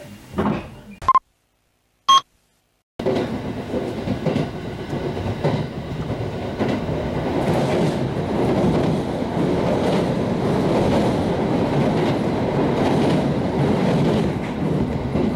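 Two short beeps about a second apart, then after a moment of silence a moving train's running noise heard from inside the passenger car. It is a steady rumble that slowly builds as the train gathers speed, with faint regular clicks of the wheels over the rails.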